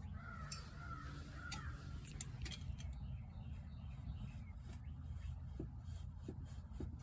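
A bird calling near the start over a steady low rumble, with a few sharp clicks about two seconds in.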